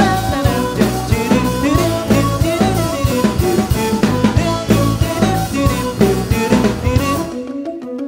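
Fusion band playing an instrumental passage between sung lines, with drum kit strikes over bass and sustained melodic tones. Near the end the band drops out briefly, leaving only a few held tones, before coming back in.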